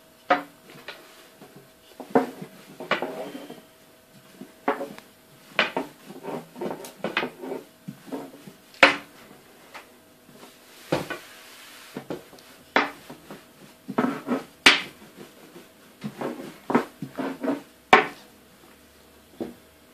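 Dough being rolled out by hand with a rolling pin: irregular knocks and clatter of the pin against the board, with a few sharper knocks.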